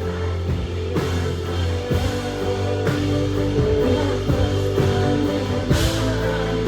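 Live band playing an instrumental passage of a pop song: sustained bass and keyboard or guitar notes over a steady drum beat, with a crash near the end.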